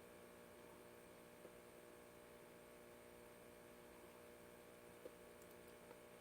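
Near silence: a faint steady hum with a few faint ticks.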